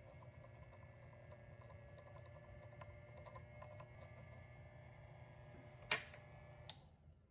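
Faint bench work on a watchmaker's lathe turning a small brass rod: a low steady hum with light scattered ticking, and a sharper click about six seconds in.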